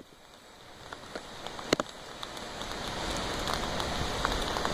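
Heavy rain falling during a hurricane, a steady hiss with scattered sharp drop ticks close by. It starts quiet and builds steadily louder.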